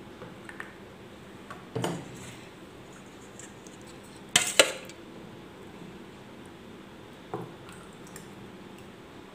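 Kitchen utensils knocking on bowls and a plastic popsicle mould: a steel ladle and spoons clinking. There are a few light knocks, then two sharp clinks close together about four and a half seconds in as the ladle is set down in a plastic bowl, and another knock about seven and a half seconds in.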